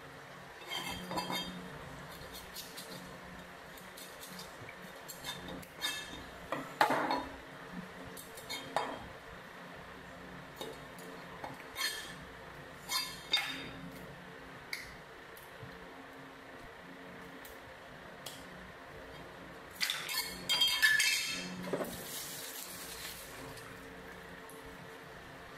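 Scattered clinks and knocks of a steel knife and small fish being handled and set down on a plastic cutting board during fish cleaning. There is a busier cluster of sharper knocks about three-quarters of the way through, followed by a brief scraping hiss.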